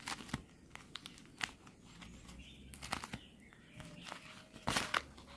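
Plastic mailer packaging being handled and opened, crinkling, with scattered sharp crackles and the loudest cluster near the end.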